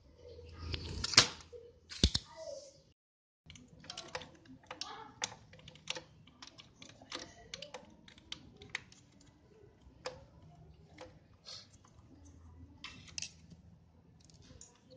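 Metal desoldering pump firing twice, about a second apart, sucking melted solder off the TV board's IC pins. After a short break, scattered small clicks and taps of a screwdriver and fingers on the circuit board and heatsink as the IC is worked loose.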